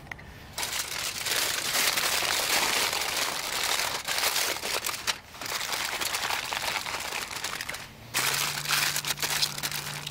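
Aluminium foil crinkling and crackling as it is folded over and crimped shut by hand into a packet, with a couple of brief pauses.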